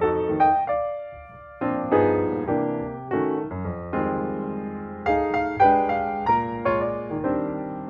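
Background piano music: a flowing run of struck notes that ring and fade, with a brief lull about a second in.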